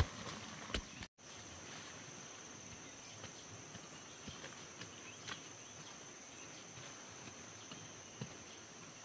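Insects trilling steadily at one high pitch over a faint outdoor hiss, with a few scattered light knocks. The sound drops out completely for a moment about a second in, then the trilling resumes.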